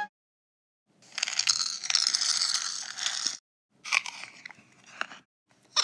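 Crunching and chewing, as of a mouthful of crisp cereal, starting about a second in and lasting about two and a half seconds, then a shorter, quieter stretch of crunching with a few sharp clicks.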